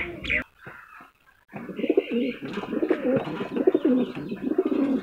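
Several domestic pigeons cooing together in a loft, a dense overlapping warble that starts about a second and a half in.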